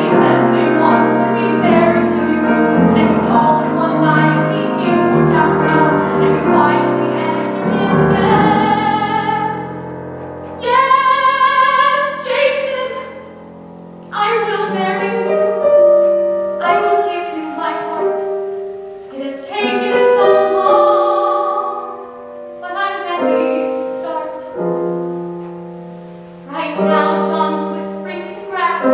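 Female singer performing a musical-theatre song with Steinway grand piano accompaniment. The piano plays a busy run of chords for the first several seconds; after that the voice sings phrases with long vibrato notes over sparser piano, with short breaks between phrases.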